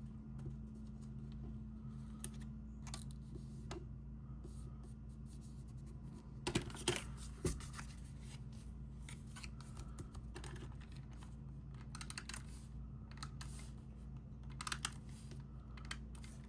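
Paper and cardstock being handled: small taps, clicks and scrapes as adhesive is put on little paper triangles and the pieces are pressed down, with a few louder clusters of clicks. A steady low hum runs underneath.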